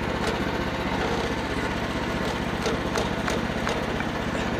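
Small gasoline engine of the sawmill idling steadily, with a few light clicks or knocks.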